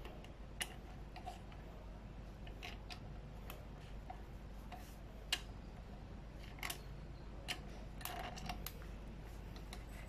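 Light, irregular clicks and ticks of small metal parts and tools being handled during e-bike brake cable work, a dozen or so scattered over several seconds.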